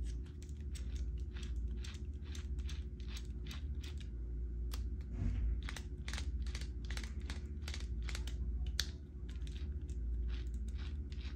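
Two-speed transmission of an Axial RBX10 Ryft RC rock bouncer being shifted back and forth by hand: a run of irregular light plastic-and-metal clicks as the shift fork slides the gears in and out of engagement, over a low steady hum.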